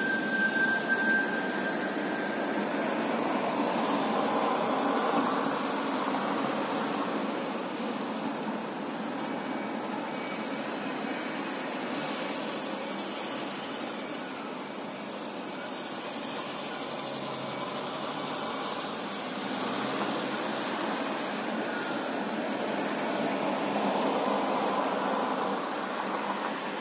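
Residential street ambience: a steady hum of cars on the road that swells as vehicles pass, a little after the start and again near the end. A small bird sings short high-pitched phrases of several quick notes again and again, every second or two.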